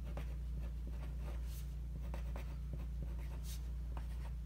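A pen writing on a sheet of paper laid on a wooden desk: a run of short, faint scratchy strokes over a steady low hum.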